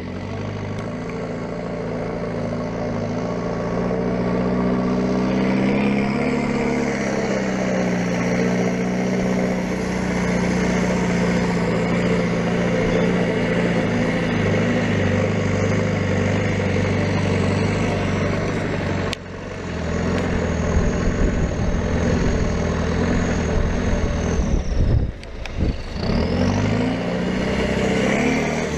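Land Rover Defender 90 engine running under load off-road, its pitch slowly rising and falling with the throttle, with the sound cut off sharply once about two-thirds of the way through.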